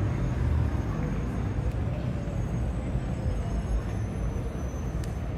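City street ambience: a steady low rumble with faint voices.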